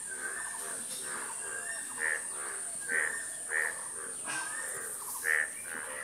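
An animal giving short harsh calls over and over, roughly one every half second to a second, over a steady high-pitched hiss.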